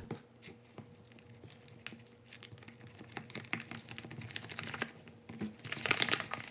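Clear glue and borax activator being stirred in a container as the slime thickens toward a clump: a rapid run of small clicks and crackles, louder briefly near the end.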